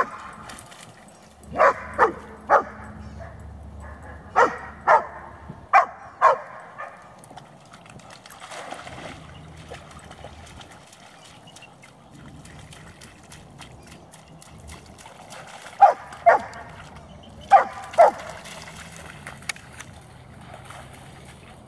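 Dog barking in short runs of two or three loud barks, several runs in the first seven seconds and two more pairs in the second half.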